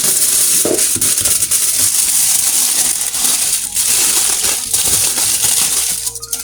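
Aluminium foil crinkling and crumpling as it is wrapped and pressed around a container by hand, a dense, continuous crackle with two short pauses.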